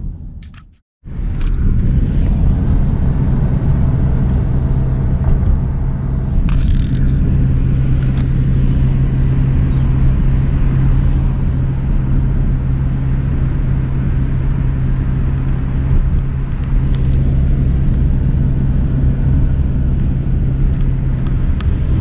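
Interior noise of a moving car: a steady low drone of engine and tyre rumble. The sound drops out briefly about a second in, then runs on evenly with a few faint clicks.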